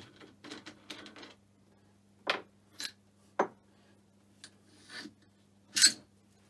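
Small steel parts from a Myford Super 7 lathe spindle assembly, such as nuts and sleeves, clinking as they are handled and set down on a workbench. There are several separate metallic clinks a fraction of a second to a second apart, and the loudest comes near the end.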